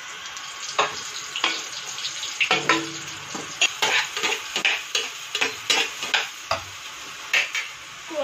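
Wheat-flour batter fritters (pua) sizzling in hot oil in a black kadhai, with frequent sharp clicks and scrapes of a metal slotted spoon against the pan as the fritters are turned and basted. Fresh batter is ladled into the oil about halfway through.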